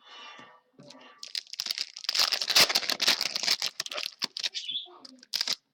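Crinkling and tearing of a foil trading-card pack wrapper as it is ripped open, with the cards inside being handled. A few sharp clicks come near the end.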